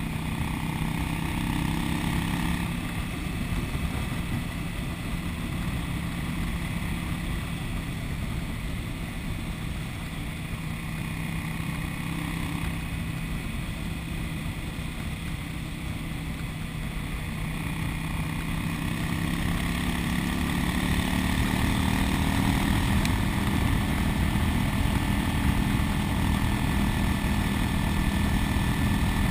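Cruiser motorcycle engine running at steady road speed under wind and road noise; about two-thirds of the way through, the engine note climbs and grows louder as the bike accelerates, then holds.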